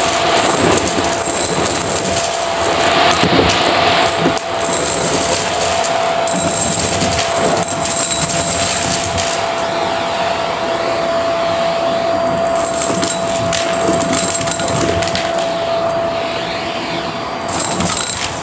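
Vacuum cleaner running with a steady whine, its wand sucking up small bits of debris from carpet, which rattle and click up the tube. The whine stops shortly before the end.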